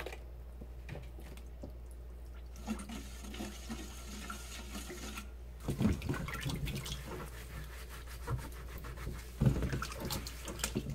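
A kabocha squash being scrubbed with a bristle scrubber in a stainless steel bowl of water with baking soda: bristles rasping on the rind and water sloshing, with a few knocks against the bowl. The scrubbing starts about three seconds in, over a steady low hum.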